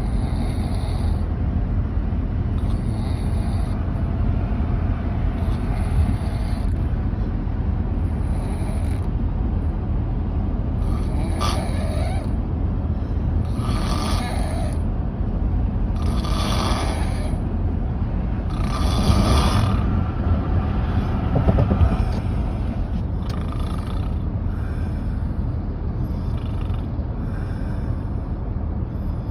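A person snoring in sleep, one snore about every two and a half to three seconds, the snores loudest through the middle of the stretch.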